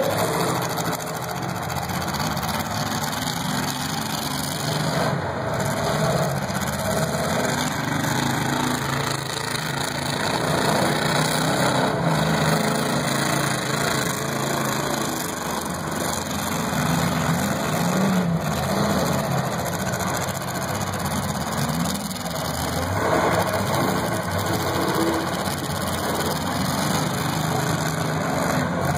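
Demolition derby cars' engines running and revving as they drive around a dirt arena. The engines give a steady drone that swells and dips a few times.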